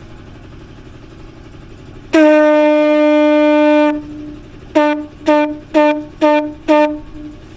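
Conch shell blown as a horn: one long, steady note of nearly two seconds, then five short blasts at the same pitch in quick succession.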